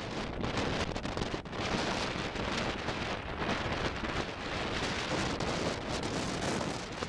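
Strong wind, about 12 metres per second, buffeting the microphone: a dense rushing noise that swells and dips with the gusts.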